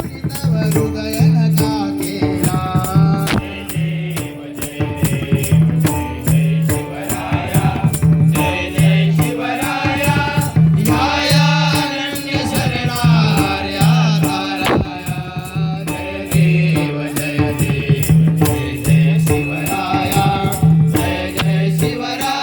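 Marathi devotional bhajan sung by a lead singer and chorus, with pakhawaj and tabla drumming a steady beat and small hand cymbals ticking in regular time.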